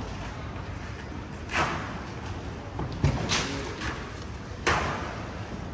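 Three loud bangs, roughly a second and a half apart, over a steady low rumble.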